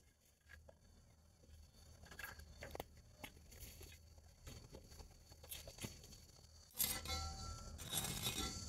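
Dry sticks and twigs rustling, cracking and snapping as they are handled, with scattered sharp cracks at first and a sudden louder, denser crackling and scraping about seven seconds in.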